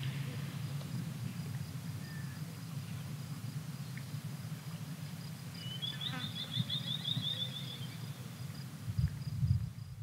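A fly buzzing steadily, with a bird's fast, high trill of about a second and a half in the middle. Near the end, low gusts of wind buffet the microphone.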